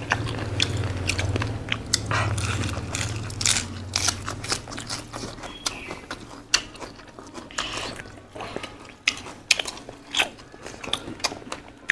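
Close-up eating sounds: wet chewing and lip smacking with crisp crunchy bites, picked up by clip-on microphones, in irregular short smacks throughout. A low hum sits under the first four or five seconds, then fades.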